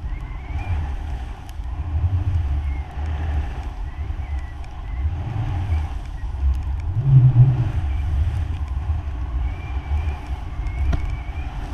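Wind buffeting an action camera's microphone during a fast powder-ski descent: a loud, uneven low rumble, with the rush of skis and spraying snow underneath.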